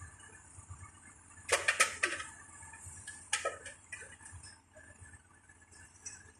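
A quick cluster of about five sharp clicking knocks about a second and a half in, then two more about three and a half seconds in, over a faint steady background hum.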